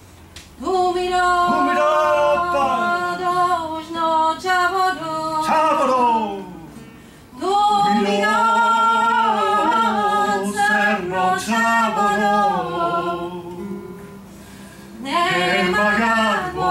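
A woman singing a Romani song in long, ornamented phrases with sliding pitch, over acoustic guitar accompaniment. There are three phrases: the second begins about seven seconds in, and the third near the end.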